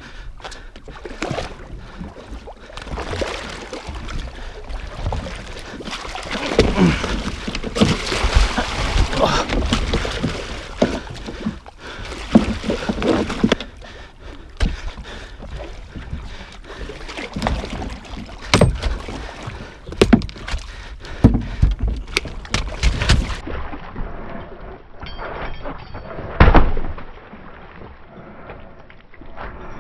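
Small yellowfin tuna splashing and thrashing at the boat's side as it is gaffed and hauled in. This is followed by a run of sharp knocks and heavy thuds against the boat's deck and gunwale.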